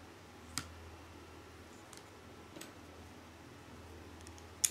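Plastic Lego pieces clicking as they are handled and snapped onto a small brick-built bird: a few sharp, short clicks, the loudest near the end.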